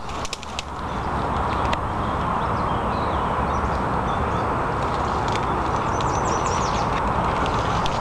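Steady outdoor rushing noise, with a few sharp clicks just at the start and a bird giving a short run of high chirps about six seconds in.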